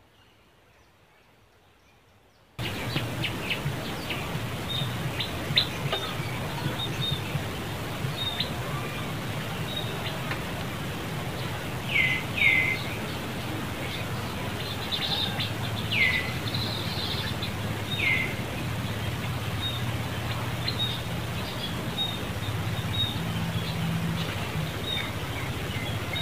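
Near silence for the first two and a half seconds, then a steady outdoor background with a low hum, scattered light clicks and a handful of short, high, downward-sweeping chirping calls.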